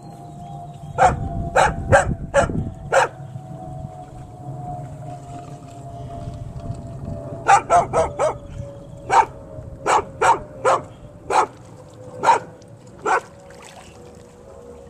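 A dog barking in short single barks: a handful about a second in, then a longer string of barks from about seven and a half seconds on, roughly one to two a second.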